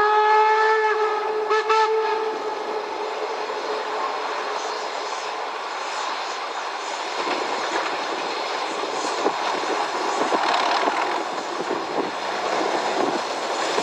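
Steam locomotive whistle blowing for about two seconds at the start, then the narrow-gauge steam train running steadily along the track.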